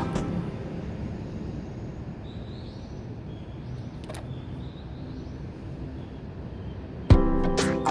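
Quiet outdoor background noise with a few faint, high bird chirps and one soft click. Music comes in sharply near the end.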